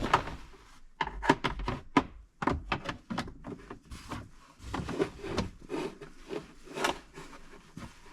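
Irregular scraping, rubbing and knocking of plastic parts as the cabin air filter assembly is pushed back into its housing by hand.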